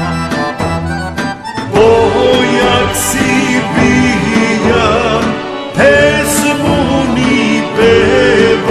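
Serbian folk song with accordion: a short rhythmic instrumental passage, then a voice starts singing about two seconds in, louder than the opening.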